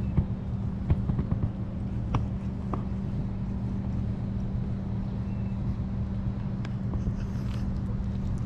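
A pet licking, with short irregular wet clicks and smacks, over a steady low hum.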